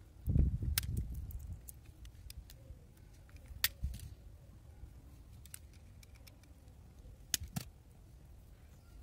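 Hands handling the stripped end of a coaxial cable: rubbing and rustling near the start, then quieter handling with a few sharp clicks, the loudest a little before halfway and a close pair later on.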